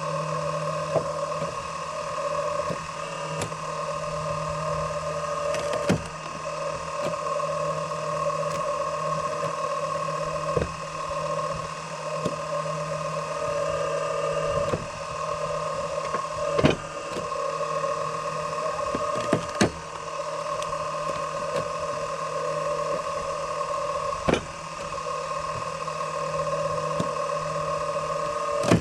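A steady mechanical hum with several sharp knocks scattered through it, about eight in all.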